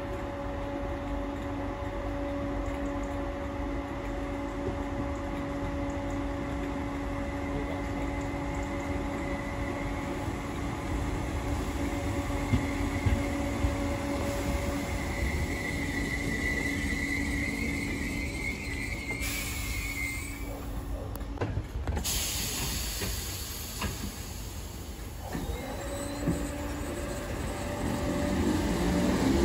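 Merseyrail Class 507 electric trains at a station platform: a standing unit hums steadily while a second unit draws in alongside with a high, wavering squeal as it brakes. A burst of air hiss follows about twenty seconds in. Near the end a train pulls away, its motor whine rising as it gathers speed.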